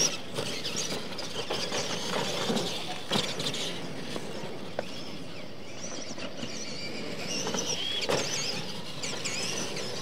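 Radio-controlled monster trucks running, their electric motors and geartrains whining and rising and falling in pitch with the throttle, with a few sharp knocks as the trucks hit the ramps and dirt.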